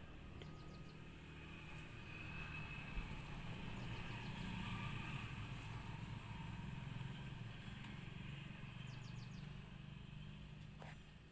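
A vehicle passing at a distance: a low engine hum swells to a peak midway and fades away. Faint, quick ticking bird chirps come briefly near the start and again near the end.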